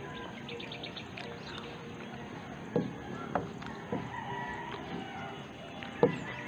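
A rooster crowing, with small birds chirping and a few short clicks.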